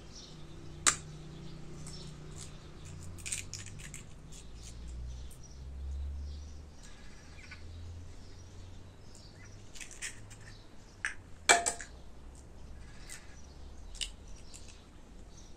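Scattered sharp clicks and taps of hand food preparation at a steel cooking pot, the loudest a quick double knock past the middle, over a low steady hum.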